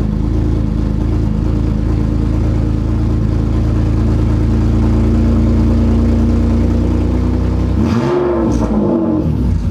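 Car engine idling loudly through an exhaust dump (cutout), steady and even. Near the end it is blipped in a couple of quick revs, the pitch rising and falling.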